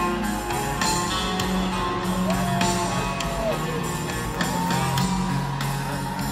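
Live heavy metal band playing: electric guitars, bass and drums with cymbal crashes. A lead guitar holds long notes that bend up and back down, twice.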